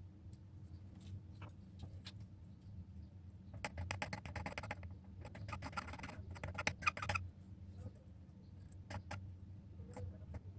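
Small hand tools scraping and clicking against a smartphone's screen glass during repair work: a few scattered clicks, then two dense runs of rapid scratchy ticking a few seconds in, over a steady low hum.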